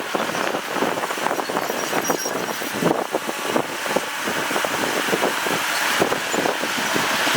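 Earthmoving machinery moving stone and soil: a dense, continuous clatter and crunch of rock, with little deep engine rumble.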